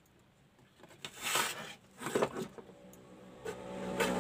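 Two brief rubbing, scraping noises from a TV circuit board being handled and turned over, then a steady hum that swells near the end.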